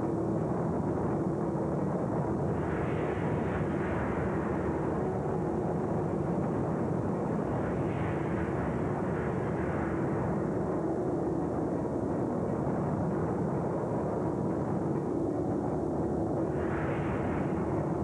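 Propeller aircraft engines droning steadily, swelling louder three times as planes pass overhead.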